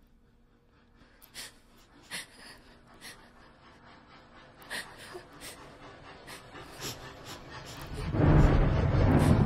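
Steam locomotive chuffing as it approaches, its exhaust beats coming gradually quicker and louder, then a loud, dense rumble and hiss from about eight seconds in as the train draws close.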